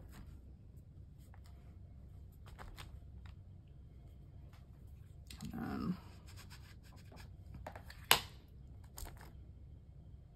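Soft tapping and light scratching of an ink stamp being inked and pressed onto a paper journal page, with one sharp tap about eight seconds in. A brief low murmur a little past halfway.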